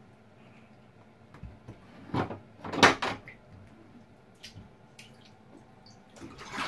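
A young Java macaque moving about a partly filled bathtub: a few light knocks, then two loud splashes in the bath water a little over two and about three seconds in, followed by a couple of small clicks.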